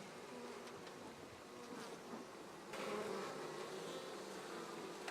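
A colony of honey bees buzzing at their hive, a steady hum of many wings that grows louder a little over halfway through.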